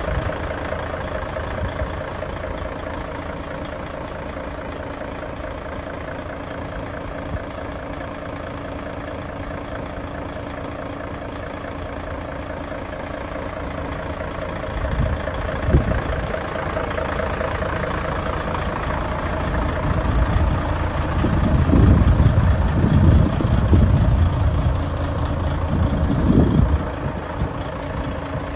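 Mercedes-Benz Actros 1840 MP1 tractor unit's V6 diesel idling steadily, with a few louder low rumbles swelling up past the middle.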